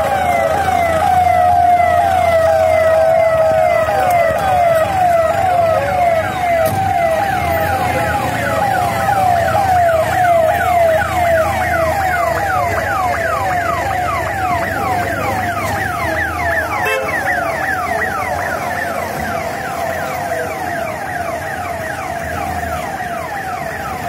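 Emergency vehicle siren sounding continuously, a wavering wail that turns into a rapid, fast-repeating yelp, over a low engine hum; it fades slightly near the end.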